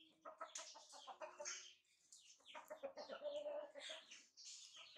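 Chickens clucking faintly in two runs of quick, repeated calls.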